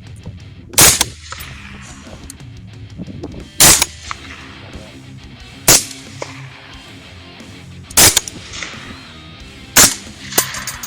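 Five rifle shots, each a sharp crack, about two seconds apart, with a softer report just after the last one. Background music with guitar plays underneath.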